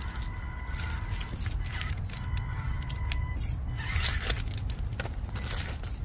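Small electric RC rock crawler (Axial Capra) driving, its motor and gears giving a thin steady whine, with scattered clicks and crunches from the tyres and chassis, a sharper one about four seconds in, over a low rumble.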